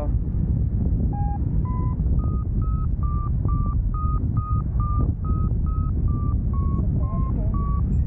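Paraglider's variometer beeping in short pips, a little over two a second, over steady wind rumble on the microphone. The pips start about a second in, step up in pitch and stay high, the vario's climb tone in lift, and dip slightly near the end.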